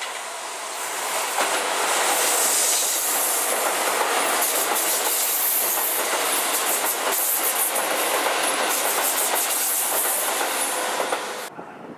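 Hokuso Railway 7260 series electric train passing close by, its wheels running over rail joints with a rapid clickety-clack. The sound builds over the first two seconds, stays loud as the cars go by, and cuts off suddenly near the end.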